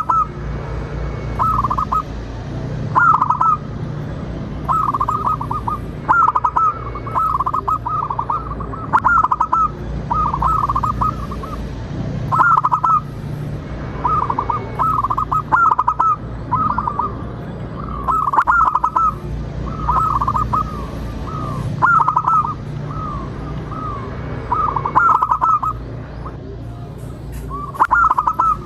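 Zebra dove cooing: short rolling, warbling coo phrases repeated every second or two, the kind of call played as a lure to prompt other zebra doves to sing. A steady low hum runs underneath.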